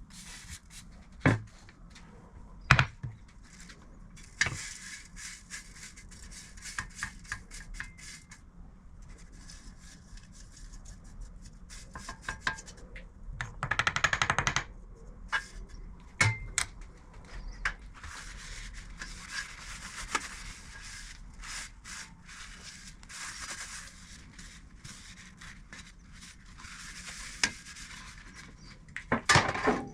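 Intermittent rubbing and scraping with scattered sharp knocks and clicks, as of tools and metal parts being handled at a workbench. The loudest scraping comes about halfway through.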